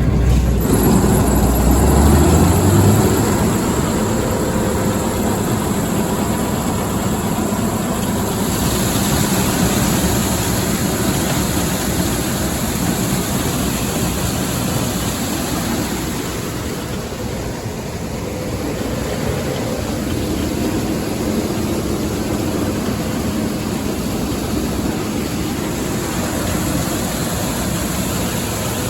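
Combine running while harvesting corn: a loud, steady mechanical roar of engine and threshing noise with a faint steady whine. A deep rumble underneath eases off about three seconds in.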